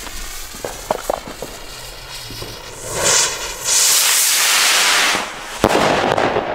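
Weco Targa "Rebel in Pink" skyrocket: the fuse sputters with a few small pops, then the motor catches with a loud rushing hiss for about a second and a half as the rocket launches. Near the end comes a sharp bang as it bursts, with a short crackling tail.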